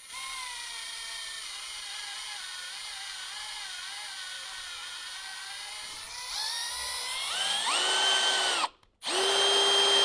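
Handheld drill on low speed driving a 1/4-20 spiral flute tap into quarter-inch steel plate. The motor whine runs slow and wavering under load, then climbs in pitch and gets louder about six seconds in. It stops briefly near nine seconds and starts again at a steady, higher speed.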